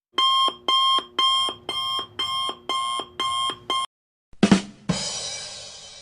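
Electronic alarm clock sound effect: a beeping tone repeated about twice a second, eight times, cutting off abruptly. After a short gap, a sudden hit with a crash that fades away.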